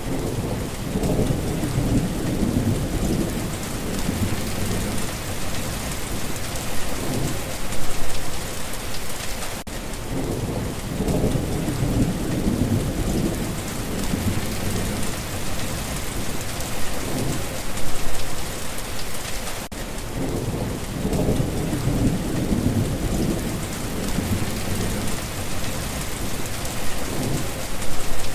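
Steady heavy rain hissing, with low rolling rumbles of thunder swelling up three times, about ten seconds apart.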